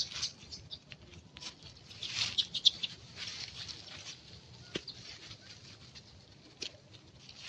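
Scattered rustling with light taps and clicks, and a longer, louder burst of rustling about two to three seconds in.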